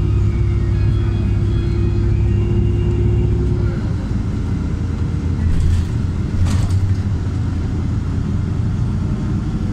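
LiAZ 5292.67 city bus on the move, heard from inside the cabin: a steady low rumble of its YaMZ-53624 compressed-natural-gas engine and drivetrain. A steady hum over it stops about four seconds in, and a few short rattling knocks come around six seconds in.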